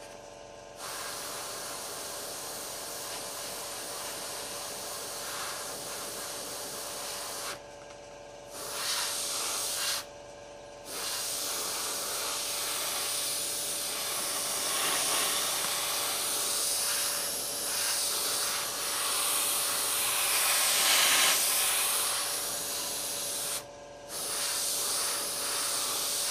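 Airbrush spraying black acrylic paint: a steady hiss of air and paint that stops briefly four times as the trigger is let off, with a faint steady hum underneath.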